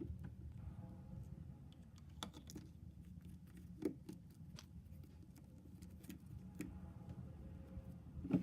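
Hands handling plastic shampoo and conditioner bottles and their packaging: scattered light taps and clicks, one a little louder about four seconds in, over a steady low hum.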